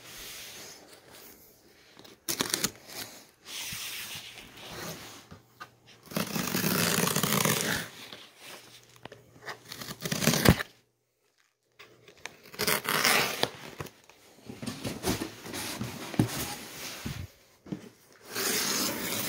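Cardboard shipping box being torn open by hand: packing tape and cardboard ripping in several long tears, with rustling and handling noise between them and one loud sharp click about ten seconds in.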